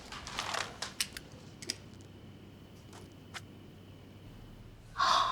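Scattered light clicks and taps from a phone being used, with a short louder sound near the end.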